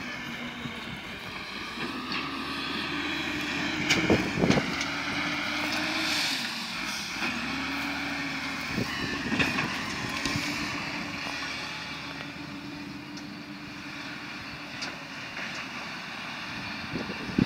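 A HELI ZL35E wheel loader's diesel engine running under load as it pushes into brush, its engine note rising and falling. There are a few sharp knocks about four seconds in and again near nine seconds.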